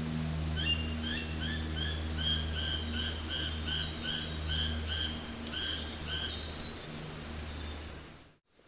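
Forest ambience with a bird singing a fast series of short repeated chirping notes, about three a second, over a low steady hum; the sound fades out near the end.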